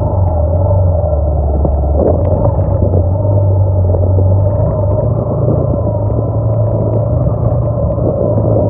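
Motorcycle engine running steadily while riding over a rough dirt track, with scattered short knocks and rattles from the bumps.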